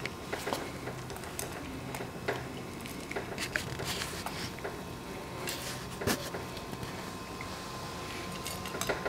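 Cat eating dry kibble from a stainless steel bowl: irregular clinks and taps of the food and the cat's plastic cone collar against the metal dish.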